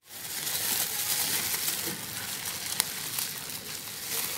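Plastic bubble wrap crinkling and rustling steadily as hands pull a parcel open, with one sharp click a little under three seconds in.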